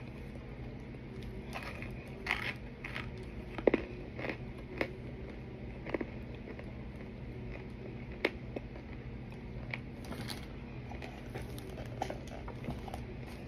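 A person chewing crunchy food: irregular crisp crunches and cracks, the loudest a little under four seconds in, over a steady low hum.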